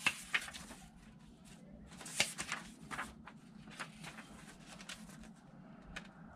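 Axial 1/24-scale Ford Bronco RC truck driving and turning on a ribbed rubber mat: quiet, irregular plastic clicks and rattles, the loudest at the very start and about two seconds in.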